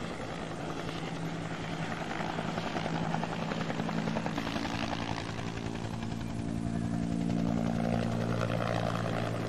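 Helicopter flying low over the fire, its engine and rotor running as a steady drone that grows louder through the second half.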